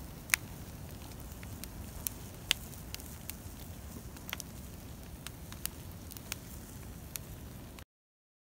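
Burning log and brush pile crackling, with sharp irregular pops of the wood about two a second over a low steady rumble. The sound cuts off suddenly near the end.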